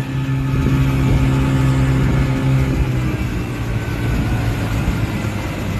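Boat engine running at a steady drone, with the rush of water and wind around it; the engine's tone drops slightly about three seconds in.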